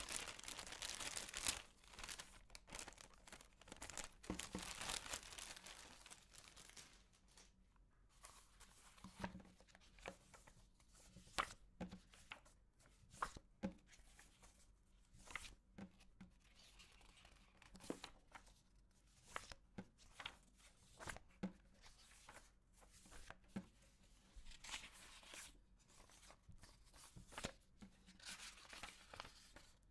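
Plastic bag crinkling as it is pulled open, dense for the first few seconds. Then quiet rustling of paper sheets with scattered soft taps and flicks as they are handled and laid down.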